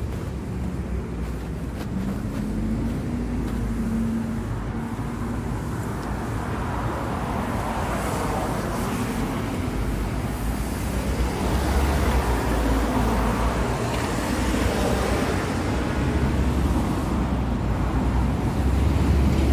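Steady road traffic noise from passing cars, a low rumble that swells about twelve seconds in and again near the end.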